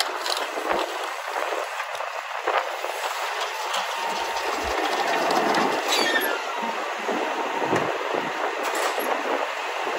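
Hydraulic cart tipper on a Loadmaster rear-loader garbage truck lifting and tipping a plastic trash cart over the hopper, with the truck's engine running, metal clanking and rattling, and a steady whine from about four seconds in. A brief falling squeal about six seconds in.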